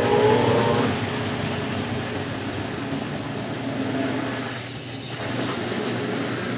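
Brastemp Ative 10 kg top-loading washing machine running through its rinse: a steady low motor hum under mechanical running noise, with a falling whine that fades out about a second in.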